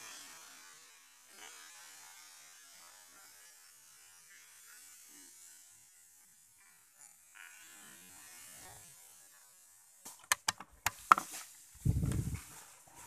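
Faint rustling, then from about ten seconds in a run of sharp clicks and knocks and a heavy low thump as the rifle with its scope camera is jolted and handled.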